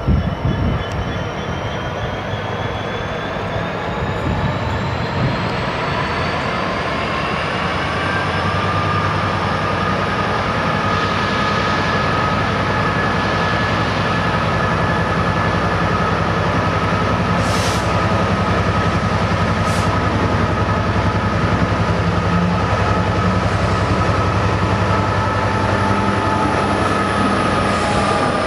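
Class 66 diesel-electric locomotive running slowly toward the listener, its two-stroke V12 engine growing slowly louder with a steady low note and high whines over it. Two short hisses come about two-thirds of the way through.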